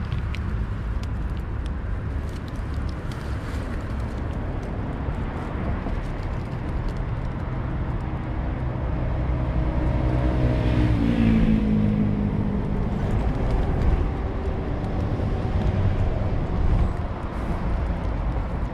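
Steady rumble of city road traffic. About ten seconds in, a louder engine passes by and its note falls in pitch as it goes.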